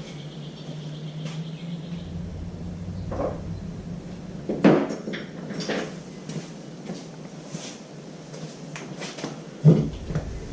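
Scattered knocks and clinks of tools and small metal parts being handled, the loudest about five seconds in and again near the end, over a steady low hum.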